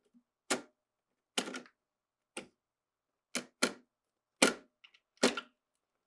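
Plastic wiring-harness connectors being unplugged from a GE refrigerator's main control board: about seven sharp plastic clicks at irregular intervals as the locking tabs are pressed and the plugs pulled free, two of them in quick succession.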